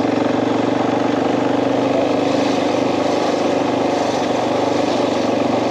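KTM 500 dirt bike's single-cylinder four-stroke engine running at steady revs while being ridden.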